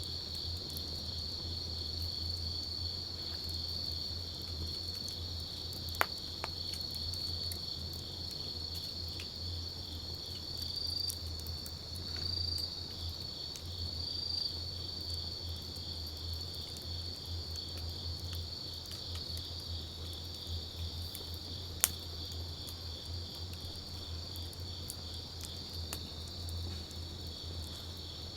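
Wood campfire crackling with scattered faint ticks and two sharp pops, one about six seconds in and one near three-quarters through, over a steady high chirring of insects and a low steady hum.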